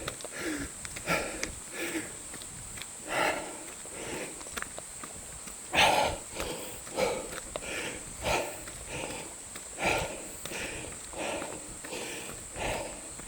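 Heavy breathing of a person running uphill on a mountain trail: hard puffs of breath about once a second, with footsteps.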